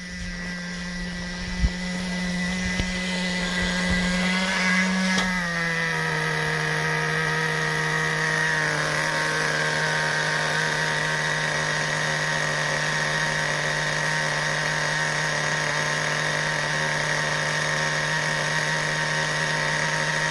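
A radio-controlled car's small engine idling at a steady, high buzzing pitch. About five seconds in the pitch glides down a little, then holds steady.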